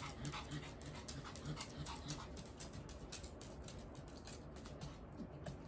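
Dog whimpering in short rhythmic pulses, about three a second, with breathy panting and small mouth clicks; the whimpers fade out about halfway through, leaving only the soft clicks.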